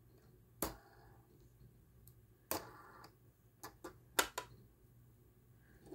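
Lego plastic pieces clacking against each other as a hand works a homemade Lego door mechanism: about six sharp clicks spread over a few seconds, the loudest a little past the middle.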